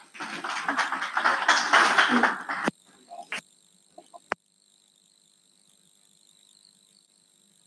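Audience applauding for about two and a half seconds, then cutting off abruptly. A few clicks follow, then near silence.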